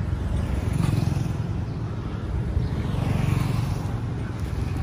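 Low, steady rumble of a vehicle engine idling, swelling a little about a second in and again just past three seconds.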